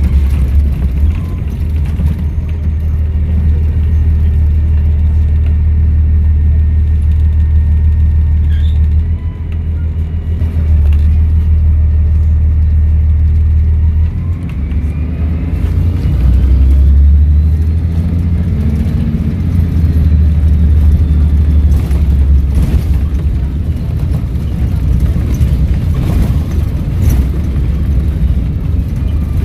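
Volvo B7RLE bus's 7-litre straight-six diesel running under way, a deep rumble that dips briefly twice and then swells again. A faint turbo whistle rises and falls over it around the middle.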